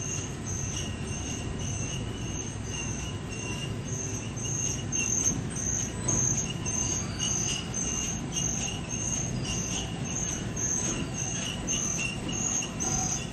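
Industrial machinery running with a steady low rumble, over which a high-pitched squeal pulses about twice a second.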